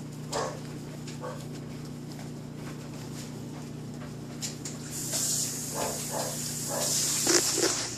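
Small dogs eating from food bowls, with scattered crunching clicks over a steady low hum. A loud rushing hiss comes in about five seconds in and lasts almost to the end.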